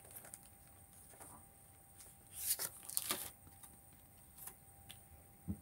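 Cards sliding out of a clear plastic bag: quiet handling, with two short rustles of plastic and card about two and a half and three seconds in, and a couple of faint taps near the end.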